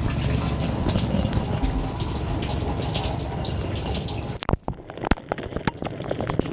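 Water spraying and gushing inside a Samsung dishwasher during a wash cycle. About four seconds in the spray cuts off suddenly, leaving drips, splashes and sharp clicks.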